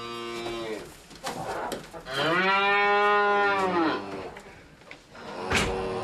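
Cows mooing: a short moo at the start, then a loud moo of about two seconds that rises and falls in pitch, and another starting near the end. A sharp click comes just before the last moo.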